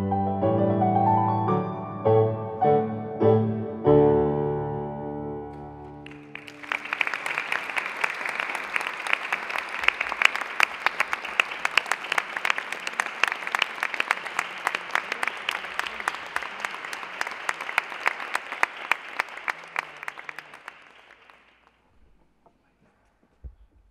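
Kawai digital piano playing the last phrases of a piece, its final chord held and dying away about six seconds in. An audience then applauds for about fifteen seconds, the clapping thinning and fading out near the end.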